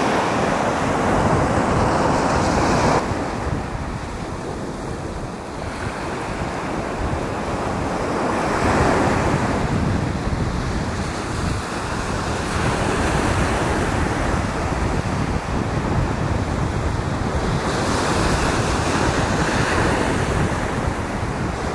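Small waves breaking and washing up a sand-and-shingle beach, the surf swelling and easing every few seconds, with wind rumbling on the microphone. The sound changes abruptly about three seconds in.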